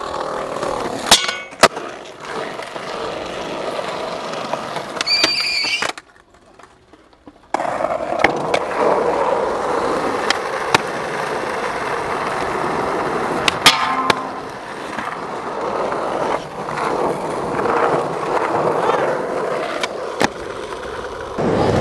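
Skateboard wheels rolling on concrete and asphalt, broken by several sharp cracks of the tail popping and the board landing. There is a short lull about six seconds in.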